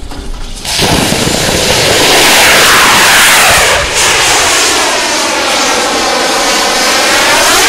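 Student-built high-power rocket's motor firing at liftoff: a loud rushing roar that starts suddenly about a second in and holds steady. As the rocket climbs away, a sweeping, phasing tone runs through the noise, sliding down and then back up.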